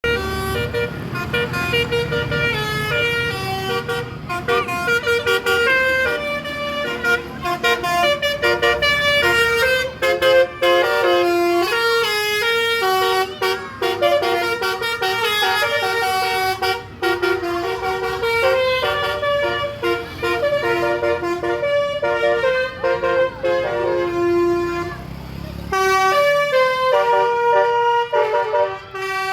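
A bus's multi-tone telolet horn playing a tune, its pitched notes stepping up and down in quick runs and held notes. A low engine rumble runs underneath and drops out near the end while the horn keeps playing.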